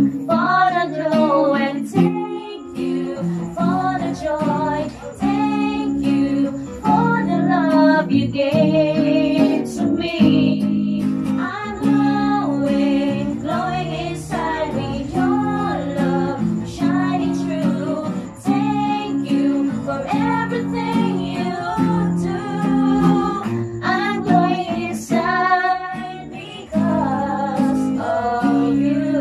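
Two acoustic guitars strumming chords while a woman sings a song and others sing along.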